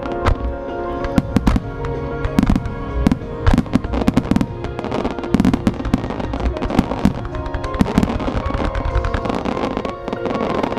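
A rapid barrage of aerial firework shells bursting, with sharp bangs coming in quick clusters several a second. Music plays steadily behind them. The bangs die away near the end.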